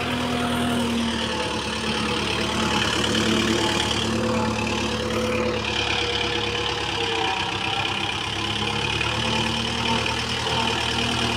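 Kubota MU4501 tractor's four-cylinder diesel engine running steadily as it pulls a ridger through the soil, its note shifting slightly a few times.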